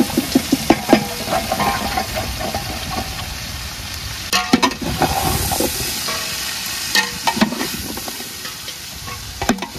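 Cut drumstick (moringa pod) pieces tumbling into a large metal pot of onions and tomatoes frying in coconut oil, over a steady sizzle. A metal ladle stirring them knocks and clatters against the pot: a quick run of knocks at first, then clatters about halfway and again near the end.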